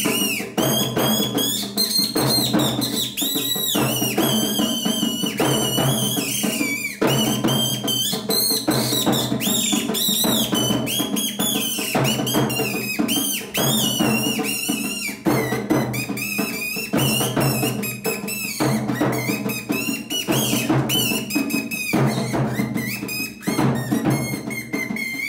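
Accompaniment to a Rajasthani kathputli puppet show: fast, continuous drumming with a high, wavering tone over it that slides up and down.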